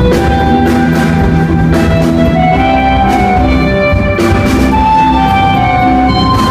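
Live band playing: drum kit with cymbal hits about once a second, bass, and sustained keyboard and guitar notes changing in a melody.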